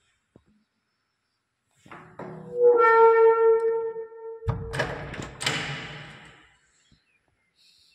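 A wooden door's hinge creaks in one long, steady, high squeal, then the door thumps and its knob latch clicks twice.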